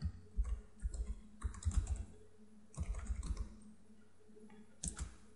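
Typing on a computer keyboard: a quick run of keystrokes for about three and a half seconds, then a single keystroke near the end.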